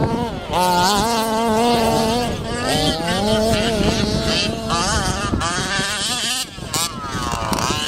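Two-stroke petrol engines of 1/5-scale RC baja buggies buzzing as they race on dirt, revving up and down so the pitch rises and falls every second or so. A brief lull about six and a half seconds in is followed by a quick drop and climb in revs.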